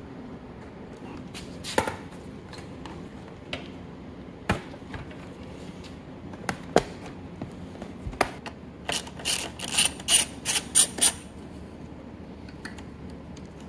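A ratchet wrench working on the motorcycle's tank and shroud bolts: scattered clicks and knocks of the tool and parts, then a quick run of about eight ratcheting strokes about two-thirds of the way through.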